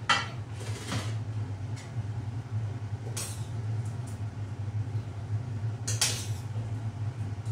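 A metal spoon scraping and knocking against a cooking pan as food is dished out, four brief scrapes spread over a few seconds, over a steady low hum.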